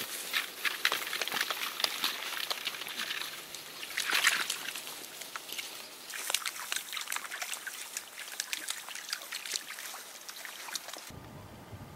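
Water trickling in a shallow swamp stream: a steady patter of small drips and splashes, with a brighter splash about four seconds in.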